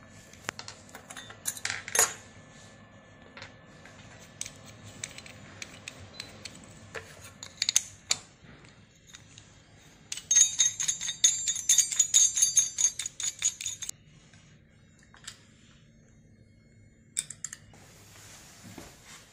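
Small metal parts clicking and jingling as a cylindrical sensor's mounting nut and washer are handled and threaded on by hand. About halfway through, a run of quick, tinny metallic clicks lasts some four seconds.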